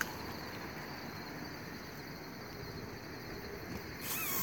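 Crickets chirping steadily in a continuous high trill. Near the end comes a sudden rushing hiss as a fishing rod is swung overhead in a cast.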